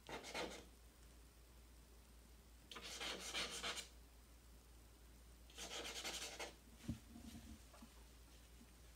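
Charcoal scratching and rubbing across drawing paper in three strokes of about a second each, followed by a short knock near the end.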